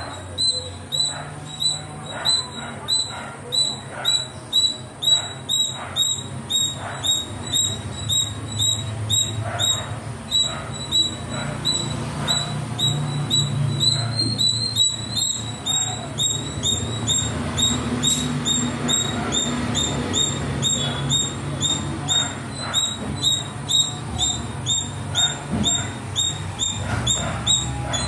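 Indian palm squirrel calling: a sharp, high chirp repeated steadily about two to three times a second.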